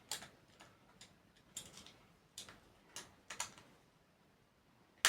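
Hand work on plastic with a small tool: a handful of irregularly spaced sharp clicks and short scratchy strokes, the loudest near the start, as another way of making a hole in the clock's plexiglass cover is tried.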